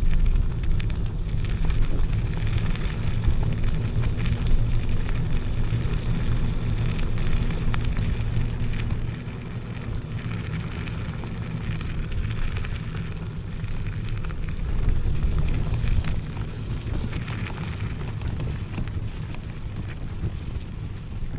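Wind buffeting the microphone and the tyre rumble of an electric scooter riding over a wet, rough offroad track: a loud, steady rumble that eases a little about nine seconds in.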